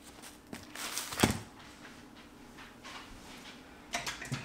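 Faint kitchen handling noises: light rustling of plastic packaging, a single knock about a second in, and a few light clicks near the end.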